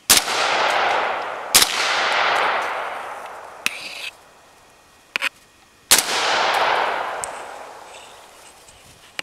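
Three shots from a Bushmaster XM-15 AR-15 rifle firing .223/5.56 rounds: two about a second and a half apart, then a third some four seconds later. Each shot trails a long echo that fades over about three seconds. Faint clicks fall between the shots.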